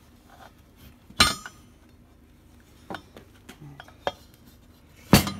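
Steel engine parts clinking and knocking as the piston and connecting rod are worked against the crankshaft in a bare engine block. A sharp ringing clink comes about a second in, then a few lighter clicks, and a heavier knock near the end.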